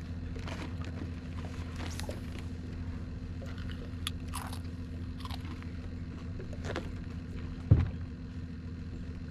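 Small crunches, clicks and rustles, typical of someone eating a crunchy snack, over a steady low hum. One dull thump, the loudest sound, comes near the end.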